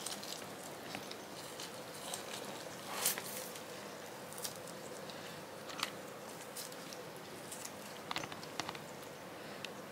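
Gloved hands pulling bulbs of a thawed frozen jackfruit free from its sticky fibres: soft, scattered tearing and crackling sounds, the strongest about three seconds in, over a faint steady hum.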